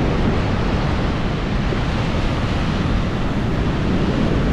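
Ocean surf washing onto a sandy beach, mixed with strong wind buffeting the microphone: a steady, loud rush of noise.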